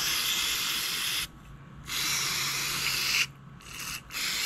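Cleaning a small-engine carburetor: two steady hissing bursts of about a second and a half each, then a few shorter ones near the end.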